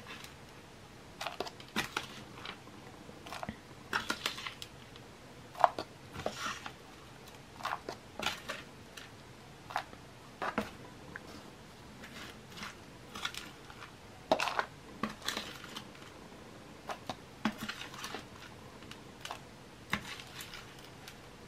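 A metal spoon scooping gritty potting mix from a plastic tray and tipping it into a plastic pot: scattered scrapes, small rattles and clicks of grains against plastic, with short pauses between scoops.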